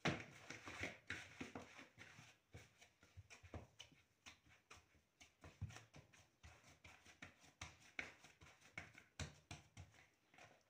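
Hands handling a ball of soft dough in a plastic bowl: a soft thump as it goes in, then irregular small pats, taps and knocks as it is pressed down and the bowl shifts.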